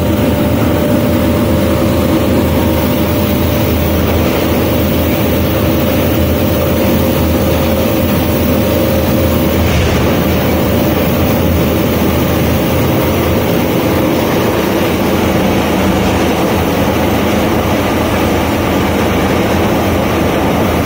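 Foam recycling pelletizing extruder line running: a loud, steady industrial machine drone with a low hum and a faint steady whine.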